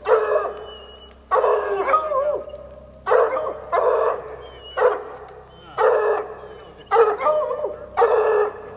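Redbone coonhounds giving a steady string of loud barks, about eight in all at roughly one a second, each ringing out briefly before the next. They are the hounds barking treed at a tree.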